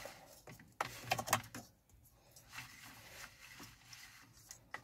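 Faint plastic clicks and rubbing from a steering-wheel clock spring being turned by hand through its turns to find its centre position, with a short cluster of clicks about a second in.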